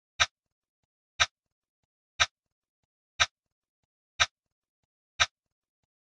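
A timer's ticking sound effect: a sharp, identical click once every second, six ticks in all.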